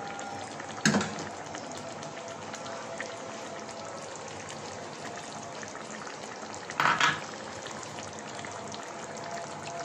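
Fish and sponge gourd curry sizzling and bubbling in a pan with a steady crackle. Two short clatters cut through it, one about a second in and a longer one around seven seconds.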